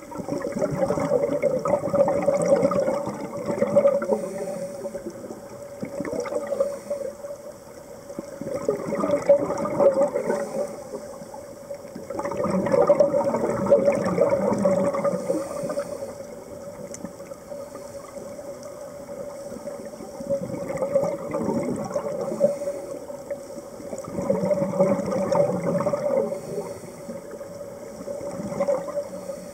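Scuba regulator breathing underwater: about five long rushes of exhaled bubbles, each a few seconds long, with quieter stretches between. A steady tone runs underneath.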